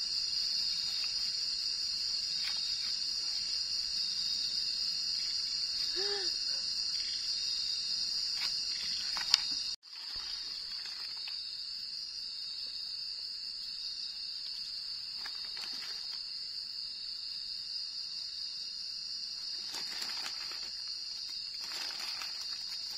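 Night insects chirring in a steady, high-pitched drone. About nine and a half seconds in there is a sharp click, then the sound drops out for a split second. Faint knocks and rustles come later, as firewood sticks are handled.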